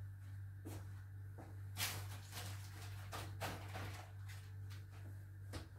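Faint, scattered light clicks and knocks of kitchen handling as a sheet of sponge cake is moved onto a cream-covered layer, over a steady low hum.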